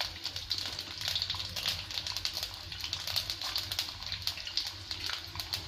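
Hot oil sizzling in a steel kadai, crackling with many small pops as a tempering of mustard seeds, cumin, urad dal and dried red chillies fries.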